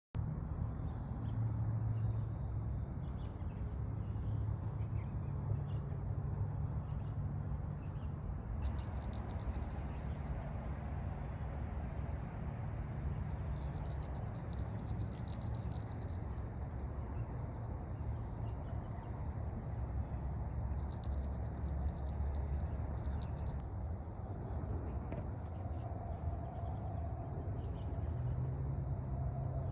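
Outdoor insect chorus: a steady high-pitched chirring of crickets, joined three times by a faster pulsing trill from another insect, over a low background rumble.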